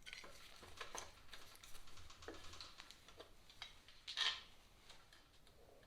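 Faint, irregular small clicks and light metal knocks of channel-lock pliers and parts being handled as a motorcycle's top fork clamp is worked loose, with one brief louder scrape about four seconds in.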